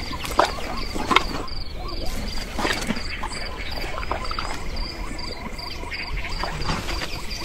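Savanna nature ambience: insects chirping in an even rhythm, a few chirps a second, over a steady low rumble with scattered soft clicks.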